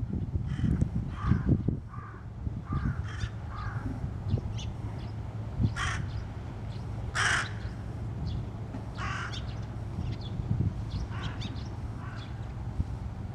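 Crows cawing: a loose series of short, harsh calls, clustered in the first few seconds and the loudest about seven seconds in, over a steady low rumble.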